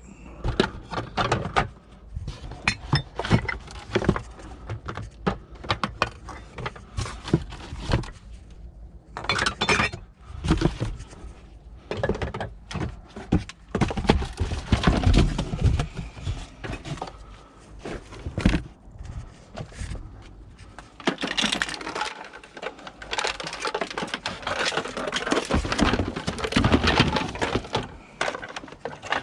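Scrap being rummaged through and handled: repeated knocks, clinks and clatter of hard objects, with a stretch of rustling and scraping in the second half.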